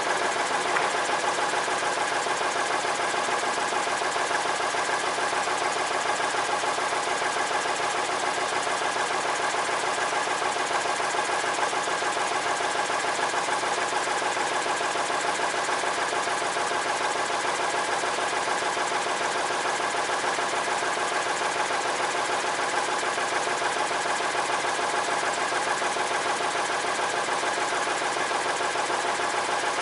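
Portable sawmill's engine running at a steady speed, its pitch and level unchanging.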